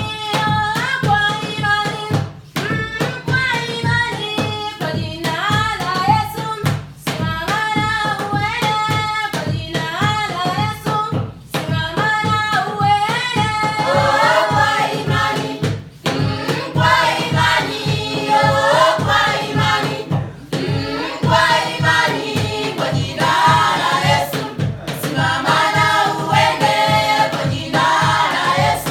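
Music: several voices singing together over a steady low beat, the singing growing fuller about halfway through.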